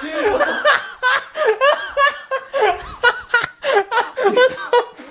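People laughing and snickering, mixed with bits of talk.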